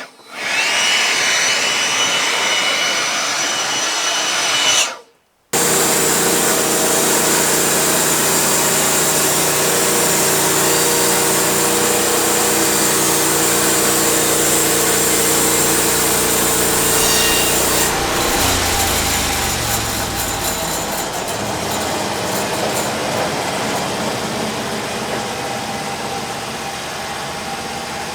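Sawmill's engine running under load as the saw cuts through a cedar log, with a steady high whine in the first few seconds and a brief gap about five seconds in. About 18 seconds in, the engine winds down in pitch and settles to a lower, steadier run as the cut ends.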